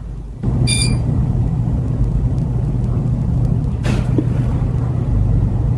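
A steady low engine-like rumble starts about half a second in. A short high beep comes just after it starts, and a single click about four seconds in.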